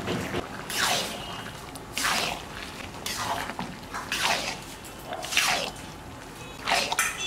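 Spoon or ladle stirring chicken tadka in a cooking pot: a noisy stroke about once a second.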